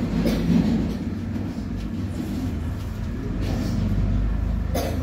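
Felt-tip marker drawing several short line strokes on a whiteboard, over a steady low rumble.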